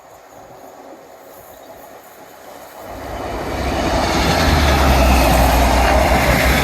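Diesel train approaching on the railway line: quiet at first, then from about three seconds in its engine hum and wheel noise build quickly and stay loud and steady as it comes alongside.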